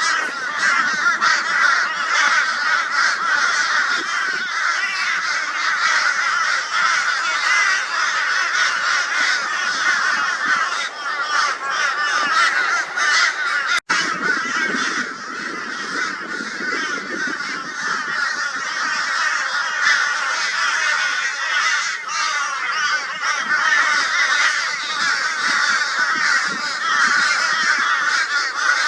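A flock of crows calling loudly and continuously in a dense, raucous chorus, mobbing a barn owl. The sound drops out for an instant about fourteen seconds in.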